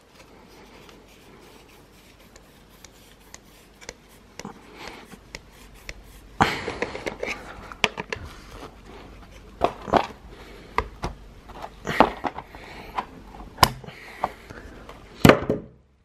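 Steel combination pliers clicking, knocking and scraping on a stroller wheel's metal axle bolt and plastic hub as the bolt is worked out. It starts faint, then from about six seconds in there are irregular sharp knocks, the loudest near the end.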